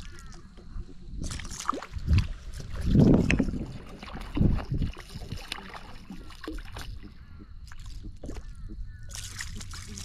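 A hooked catfish splashing at the surface right beside a kayak, with water sloshing and a few heavy thumps, the loudest about three seconds in.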